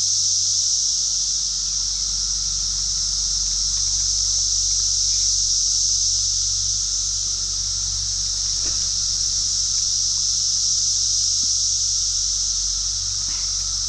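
Steady, high-pitched drone of an insect chorus, unbroken throughout, over a low steady rumble, with a couple of faint ticks in the second half.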